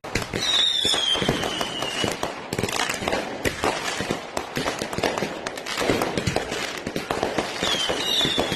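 Fireworks going off in a rapid, continuous crackle of pops and bangs, with a high whistle that falls in pitch about half a second in and again near the end.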